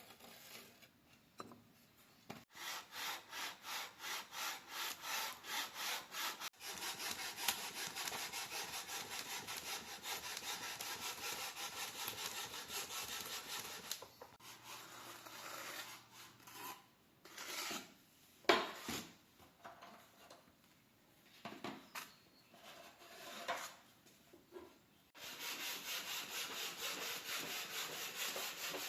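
Rapid back-and-forth rasping strokes of a hand tool on a hard material, about two to three strokes a second, in two long runs with scattered scrapes and knocks between.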